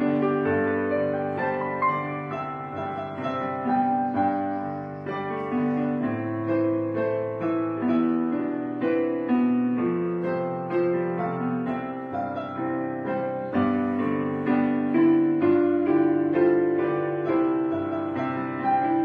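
Background piano music: a slow, gentle piece of struck piano notes and chords.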